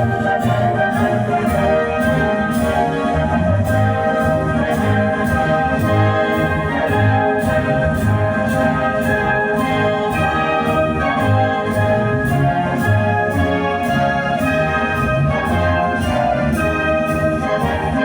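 Instrumental music played loud over a large PA system of OHM TRS speakers and subwoofers during a sound check, with a heavy bass pulsing about once a second under sustained brass-like chords.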